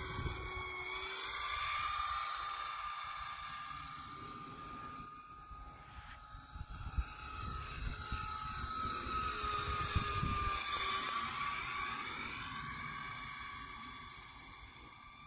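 Radio-controlled model F-104 Starfighter flying past overhead: a steady high-pitched motor whine that swells and fades twice, its pitch shifting as the model passes close near the end.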